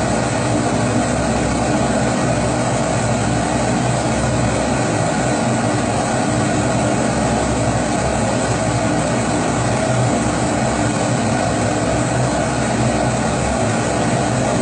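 Kerosene pressure stove (Primus-type babour) burning steadily: an even, unbroken rushing noise from the pressurised burner that does not change.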